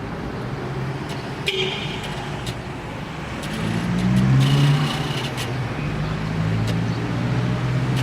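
Road traffic: car engines running and passing, with a louder pass about four to five seconds in.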